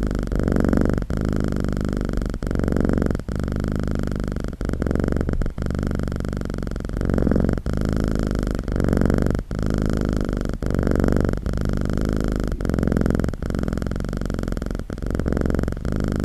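Cat purring: a low, steady rumble that swells and dips with each breath, about once a second.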